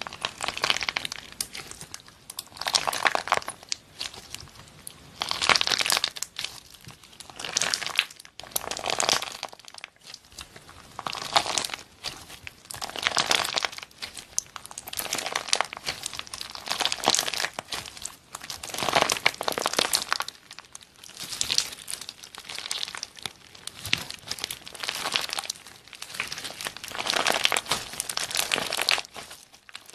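Clear slime packed with small plastic cheese-wedge and burger charms being squeezed and pulled apart by hand, giving crisp, crunchy squishes in repeated waves, one every second or two.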